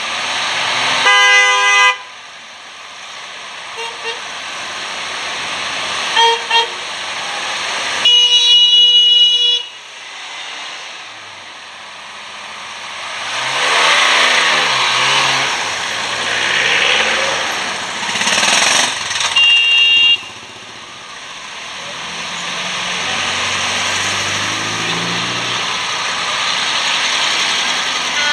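Classic cars driving slowly past with their engines running, and old car horns tooting several times: a short blast about a second in, a brief toot around six seconds, a longer blast around eight seconds and another short one near twenty seconds. One car passes close around fourteen seconds.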